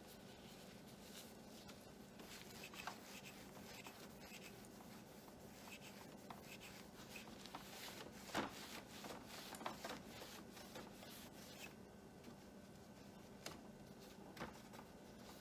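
Faint rubbing of a cloth being wiped over a printer's scanner glass, with small scratchy noises and soft taps, one sharper tap about eight seconds in, over a faint steady hum.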